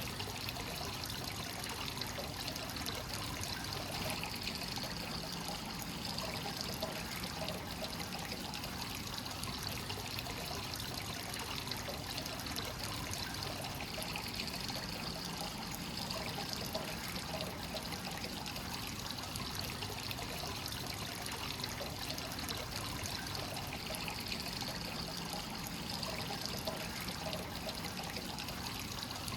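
Hot spring water flowing steadily into a bath, a continuous trickling pour with small bubbling splashes. The higher hiss of the flow swells and fades every ten seconds or so.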